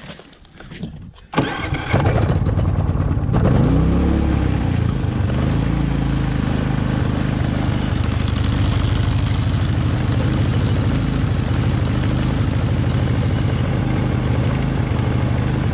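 Predator 3500 inverter generator engine starting about a second and a half in, then running steadily. Its pitch rises and settles shortly after it catches.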